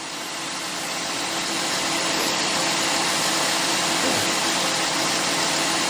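Car's V8 engine idling under the open hood, heard as a steady, even noise that grows louder over the first two seconds or so and then holds.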